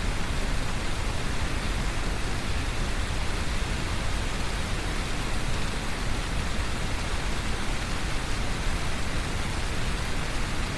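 Brown noise layered with heavy rain: a steady, unbroken rumble and hiss with no separate events.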